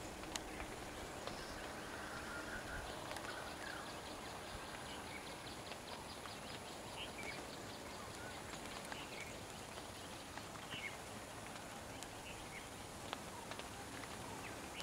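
Outdoor forest ambience: a steady low background with scattered short bird chirps, and a quick run of faint ticking calls a few seconds in.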